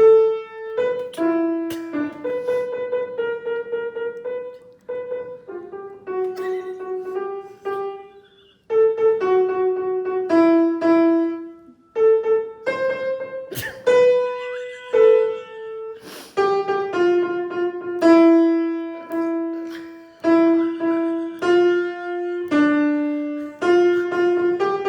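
Piano playing a melody one note at a time, each note struck and left to ring, with a couple of short pauses.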